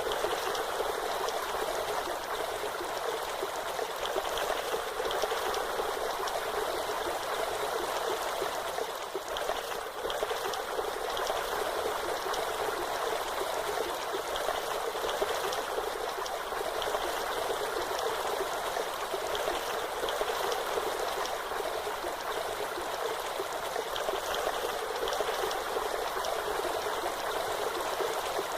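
Waterfall: steady rushing, splashing water, even and unbroken, with little deep rumble.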